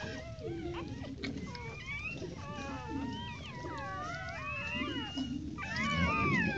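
A litter of newborn bully puppies squeaking and whining, many thin high calls overlapping and gliding up and down. They are sparse at first, grow busier about two seconds in, and are loudest near the end.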